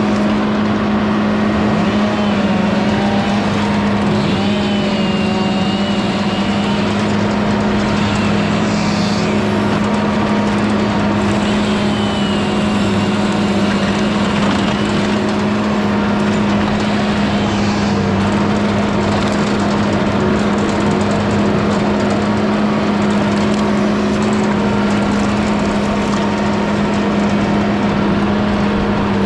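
Mini skid steer's engine running steadily at constant speed, with fainter higher tones that waver in pitch now and then as it works.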